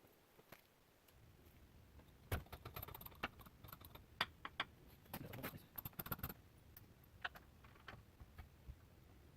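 Scattered light clicks and clinks of hand tools and hardware being handled, in a cluster over a few seconds and then a few stray ones, over a low steady rumble.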